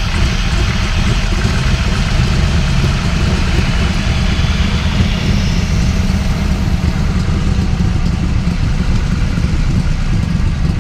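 Smeding 427 Windsor V8 with eight-stack fuel injection in a Superformance Cobra running steadily and loudly, heard close to the open engine bay, with no revving.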